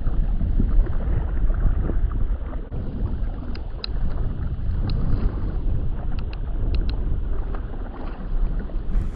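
Wind buffeting the camera microphone as a heavy, steady low rumble, with a few faint short high ticks in the middle.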